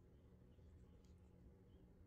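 Near silence: low room tone with a few faint, brief ticks.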